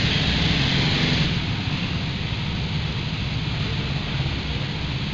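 Go-kart engines running out of view, a steady low rumble under a hiss that is louder for the first second and a half.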